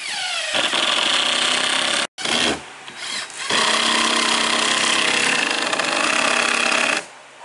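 Power drill driving exterior deck screws into OSB roof sheathing, in two long steady runs with a short pause between. The motor's pitch drops at the start of the first run.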